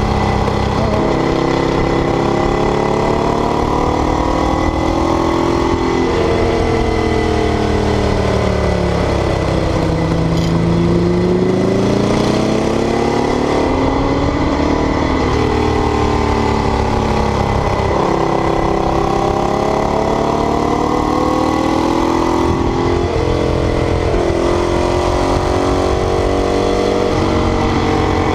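Ducati 848's L-twin engine at high load, its pitch repeatedly climbing and dropping with sudden steps as it works through the gears.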